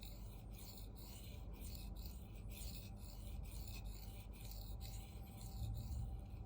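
CPM 4V steel knife blade stroked back and forth on a hand-held Venev F800 bonded diamond stone, a faint steady scraping with about two strokes a second.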